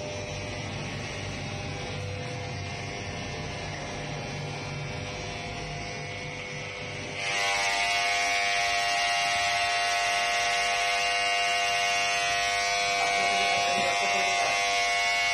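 A steady low hum at first; about seven seconds in, a louder steady electric buzz with many even overtones starts suddenly and holds: electric hair clippers running.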